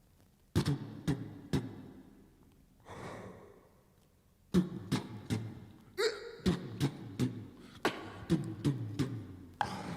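A person making percussive mouth sounds, beatbox-style: sharp clicks and pops over low hums. The sounds start about half a second in, pause for a second or so near the middle, then come back faster.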